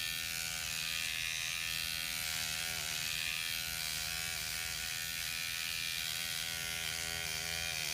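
Rejuvapen electric microneedling pen buzzing steadily as its motor drives the needle cartridge over the skin. The buzz's pitch wavers slightly as the pen is moved.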